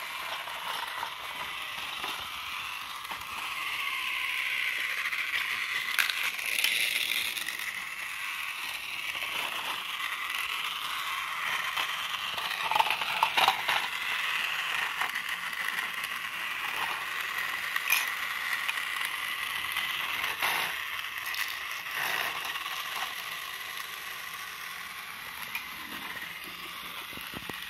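Battery-powered Tomy toy train engines running on plastic track: a steady high-pitched motor whine with occasional sharp plastic clicks.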